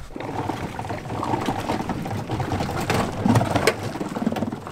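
Thin ice crackling, crunching and scraping against a small boat's hull as the boat is pushed slowly through it on an electric trolling motor, with many irregular cracks.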